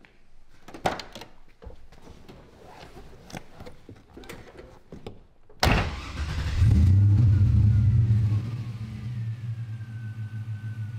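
A few clicks and light knocks, then about halfway through a 1969 Camaro's LS3 V8 fires up with a sudden burst, revs briefly and settles to a steady idle. A faint high whine slowly drops in pitch while it idles.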